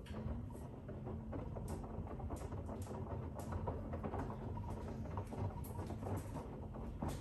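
Grundig FIBERCatcher front-loading washing machine in an intermediate spin burst: the drum motor hums at a steady pitch while wet laundry and sudsy water slosh and patter in the turning drum. The motor hum stops about seven seconds in.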